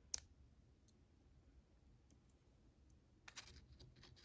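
Faint, small clicks of handling padlock parts while driver pins and springs are loaded back into the bible of an American 1105 padlock: one sharp click just after the start, then a short run of soft clicks and rustle near the end.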